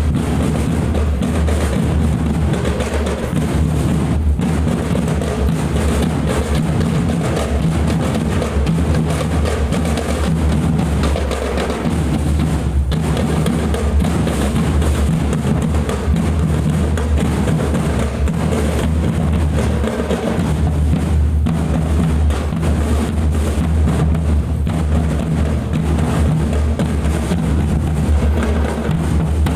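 Marching drum band rehearsing: bass drums and snare drums playing together, loud and continuous.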